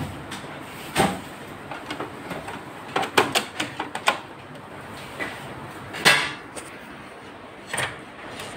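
Scattered knocks and clicks from hands handling parts of a Ricoh MP 201 copier's opened scanner unit: one knock about a second in, a quick run of clicks around three to four seconds, a louder knock about six seconds in and another near the end.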